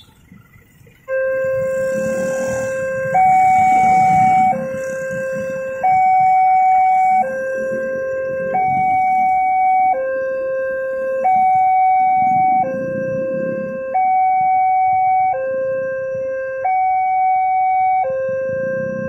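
Railroad level-crossing warning alarm: an electronic two-tone signal that starts suddenly about a second in and alternates between a low and a high tone about every 1.3 seconds, warning road traffic that a train is approaching and the barrier is coming down.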